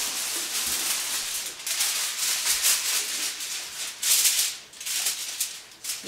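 Aluminium foil crinkling and rustling as it is spread out and folded by hand, in irregular bursts with short pauses.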